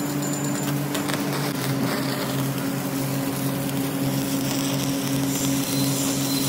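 Stick (manual metal arc) welding on a steel pipe joint: the electrode's arc crackles and sizzles steadily, with a steady low hum underneath.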